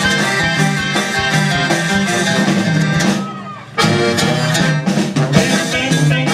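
Live band music, loud and dense, with a brief break a little past the middle before the band comes back in.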